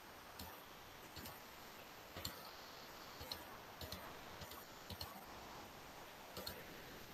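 Faint computer mouse clicks: about a dozen sharp, irregular clicks, several in quick pairs, over a low steady hiss.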